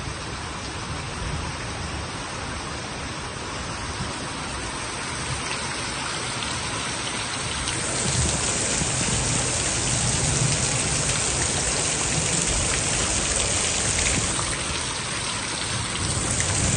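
Steady hiss of heavy rain mixed with the rush of a muddy river in flood. About eight seconds in, the hiss grows louder and brighter.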